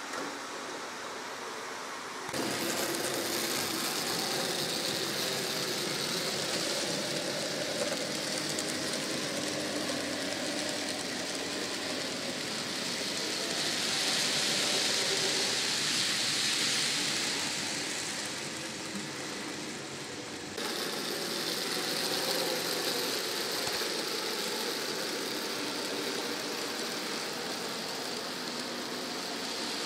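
N gauge model trains running on the layout: a steady rushing rattle of small wheels on rail and motor whir. It gets louder as a train of tank wagons passes close, and twice cuts abruptly to a different level.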